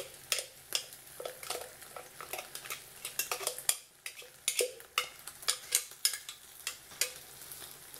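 Pork steak rolls frying in hot oil in a clay pot, crackling with irregular sharp pops several times a second over a faint sizzle.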